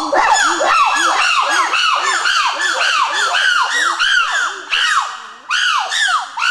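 Several chimpanzees pant-hooting together: a fast series of high, rising-and-falling screaming calls, about three a second, with overlapping voices, dipping for a moment about five seconds in.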